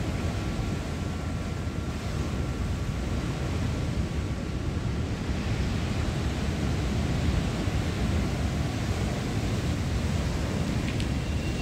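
Wind rumbling on the microphone over the wash of a calm sea, a steady noise heaviest in the low end. A faint steady hum fades out in the first half.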